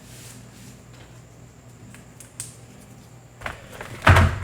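Metal multifunction pliers being handled and set down on a work surface: a few light clicks, then two knocks near the end, the second the louder.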